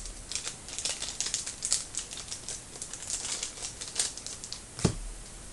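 Trading card pack wrappers crinkling and rustling as card packs are handled and opened, with quick small clicks throughout and a dull knock near the end.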